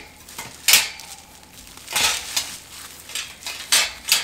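Iron plant-stand shelf frames clinking and scraping against each other as they are pulled out of bubble-wrap packing, with the plastic wrap crinkling. The sounds come in irregular bursts with small clicks between, the loudest about a second in.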